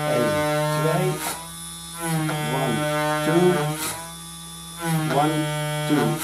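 BMW F800GT's ABS pressure modulator running its bleed cycle, set off from diagnostic software: the pump motor and valves buzz in three bursts of one to two seconds each, with short pauses between. The cycle is driven to purge any trapped air from the ABS unit.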